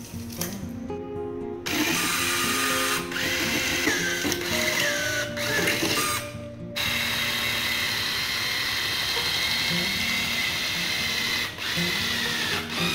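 Cordless drill boring a hole through an aluminium mirror frame, running in two long bursts with a short break between them, its motor whine wavering in pitch under load. Background music plays underneath.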